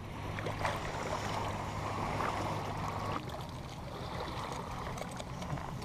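Water splashing and sloshing at a kayak's side as a hooked snook thrashes at the surface, easing off about three seconds in.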